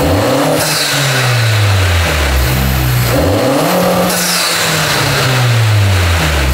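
Honda Civic Si's 1.5-litre turbocharged four-cylinder, fitted with a PRL high volume intake and cold air inlet duct, revved twice from idle. Each rev climbs quickly and falls back to idle over about two seconds, with a falling hiss from the intake soon after each one.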